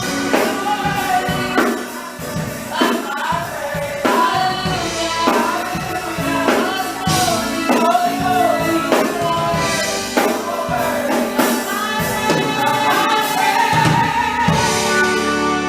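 Gospel praise team singing, backed by a steady drum beat.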